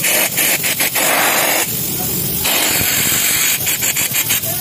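Compressed air hissing loudly through a rusted, non-working air impact wrench on its air hose, in short spurts and a steadier rush, without the hammering of the impact mechanism.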